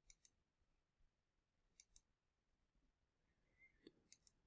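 Faint computer mouse clicks in quick pairs, three times, like double clicks, from selecting edges in CAD software.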